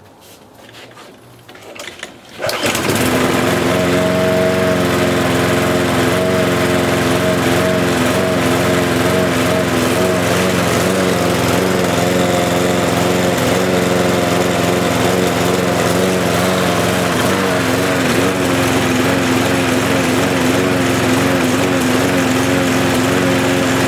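Briggs & Stratton 35 Classic single-cylinder petrol engine on a push lawn mower, pull-started and catching about two and a half seconds in, then running steadily at a constant speed.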